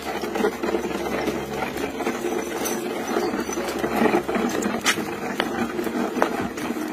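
Small wooden cart with red wheels rattling along a dirt street as a goat pulls it: a continuous clattering with scattered sharp clicks and knocks.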